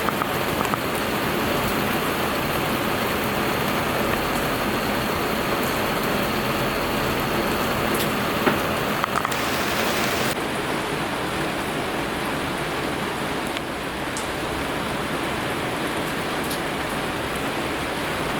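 Steady rain falling on hard surfaces, a constant hiss with scattered sharp drip ticks. About nine seconds in, a brief brighter hiss swells for a second, and after it the sound turns a little duller.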